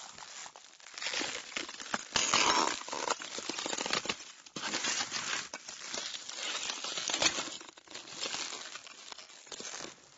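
Broken car windscreen glass debris crunching and crackling in irregular swells of fine clicks, loudest about two seconds in and again around five and seven seconds.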